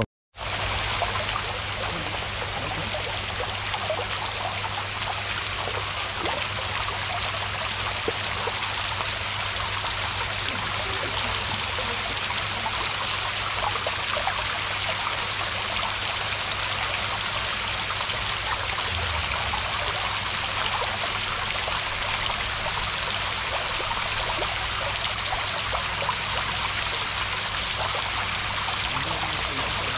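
Water cascading down a stone-clad wall into a swimming pool: a steady splashing rush with a low hum beneath, cutting in just after a moment of silence at the very start.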